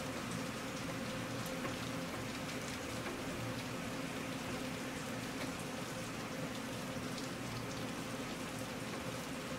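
Steady rain falling, an even hiss with scattered raindrops ticking.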